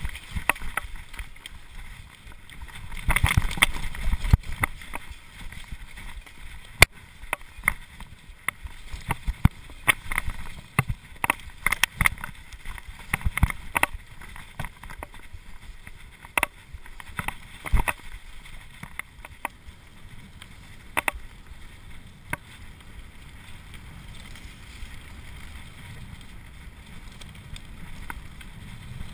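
Cube LTD Pro mountain bike ridden fast over rough dirt and gravel trail: steady tyre rumble and wind noise, with frequent sharp clicks and rattles of the bike over bumps. A rougher, louder stretch comes about three to five seconds in, and the ride runs smoother near the end.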